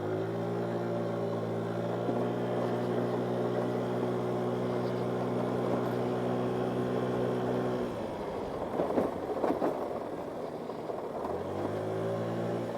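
GY6 50cc scooter's single-cylinder four-stroke engine held at steady revs under throttle for about eight seconds, then the throttle closes and it drops away, leaving rattles and knocks from the scooter over rough trail; near the end the engine revs up again.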